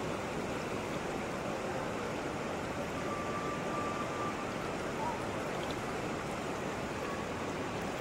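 Shallow mountain river rushing steadily over rocks.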